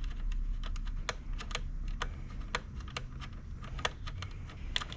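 Ratchet wrench clicking in short irregular runs while a 10 mm bolt is loosened on a small portable generator.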